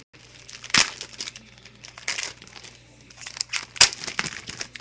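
Plastic packaging crinkling as it is handled, with irregular crackles and two sharp louder crackles, about a second in and near four seconds.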